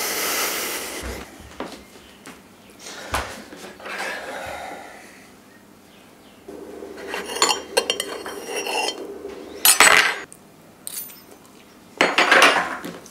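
Cutlery and plates clinking and scraping while pancakes are served, the clatter busiest in the second half with one sharp clink.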